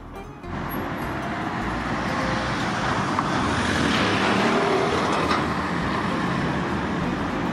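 Street traffic noise: a motor vehicle passing, its sound swelling to a peak about halfway through and then easing off a little.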